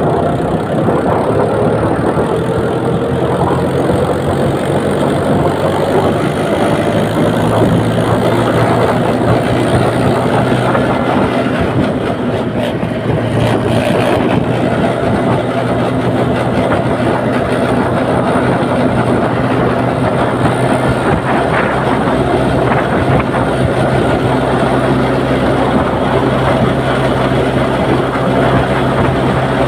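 Mahindra tractor's diesel engine running steadily under way on the road, heard close up from the driver's seat.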